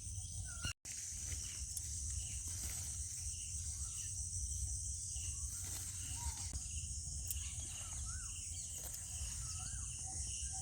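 Outdoor field ambience: a steady, high insect drone of crickets, with scattered short bird chirps and a low rumble underneath. The sound cuts out completely for a moment just under a second in.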